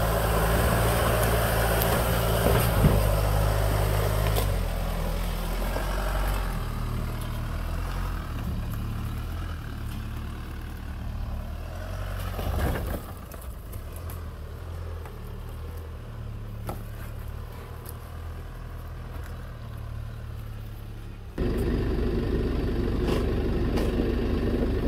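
Holden Colorado ute's engine working at low speed as it crawls over rocks, its note stepping up and down with the throttle and slowly fading as the vehicle pulls away, with a brief scuff about halfway through. Near the end the sound cuts abruptly to a different steady low hum.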